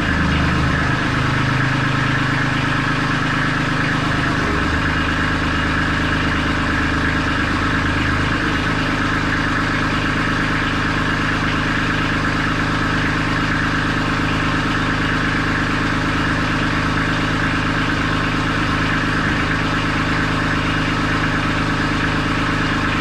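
Kubota B2650 compact tractor's three-cylinder diesel engine running steadily while the front-loader hydraulics are worked to set the loader down and tilt it. Its low note shifts about a second in, and again between about five and eight seconds in.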